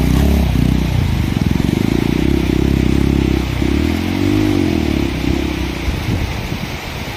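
Road motorcycle engine running as the bike is ridden slowly over rough, rocky ground. Its pitch rises and falls about four seconds in as the throttle is worked, and the sound grows rougher and a little fainter near the end.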